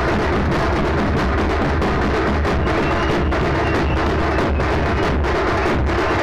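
Group of large double-headed drums played together in a loud, dense, continuous rhythm.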